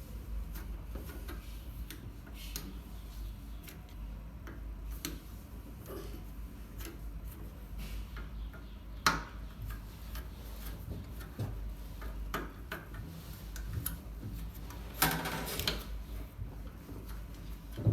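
Irregular small clicks and knocks of parts being handled, with a sharper click about nine seconds in and a short scraping rattle about fifteen seconds in, over a low steady hum.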